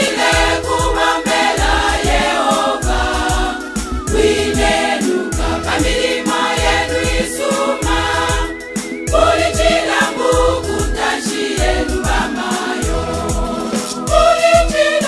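Choir singing a gospel song over a steady beat with a regular bass pulse.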